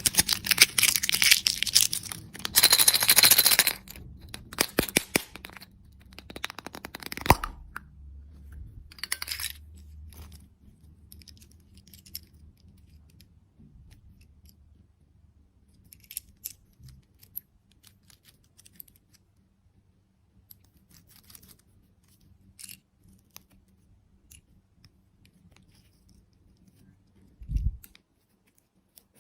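Packaging being crinkled and torn open for the first several seconds, then sparse light clicks and taps, and one dull thump near the end.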